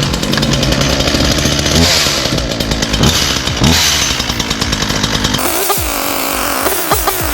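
Ryobi 37cc two-stroke gas chainsaw engine running on its first startup out of the box, the throttle revved up and down several times. About five seconds in it settles to a steadier, lower idle with a few quick throttle blips.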